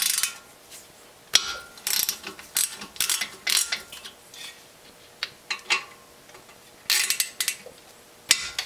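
A 7mm Allen driver ratcheting in short bursts of rapid clicks as the front brake caliper guide bolts are turned out, with pauses between the bursts.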